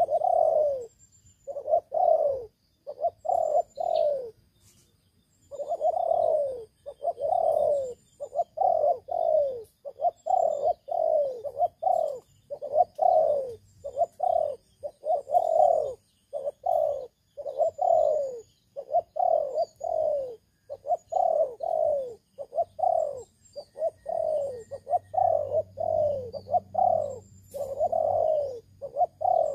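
Spotted dove cooing over and over: short, falling coos in quick succession, with one pause of about a second and a half about four seconds in. Small birds chirp faintly in the background.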